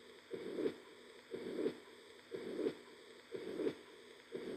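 Recorded heart sounds of mitral regurgitation: five beats about a second apart, each a first heart sound running into a blowing pansystolic murmur that lasts until the second heart sound.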